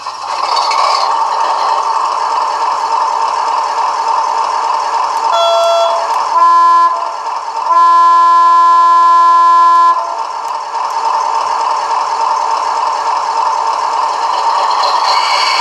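An ESU LokSound V4.0 sound decoder in a model MaK DE1024 (DB class 240) diesel locomotive, playing through small piezo speakers. It gives a steady diesel engine running sound. About five seconds in, the locomotive horn sounds: a short high toot, then a short blast and a long blast of about two seconds on a lower note.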